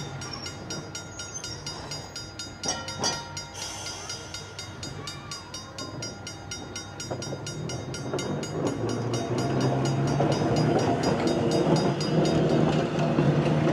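Vintage electric streetcar rolling along its track, wheels running on the rails, getting louder from about halfway through as it draws alongside and passes close by.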